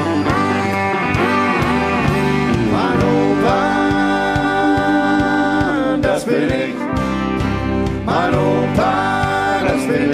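Live country band playing a bluegrass-style tune: a man sings long, held, bending notes over guitars and a steady bass.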